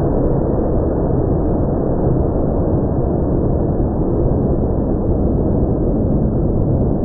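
Automatic tunnel car wash running: a steady rushing noise of water spray and cloth brushes working over a car.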